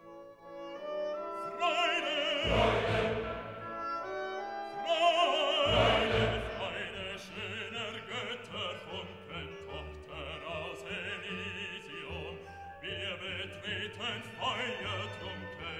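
Background music: an operatic classical piece, a singer holding long notes with wide vibrato over orchestral accompaniment, with deep low notes entering twice.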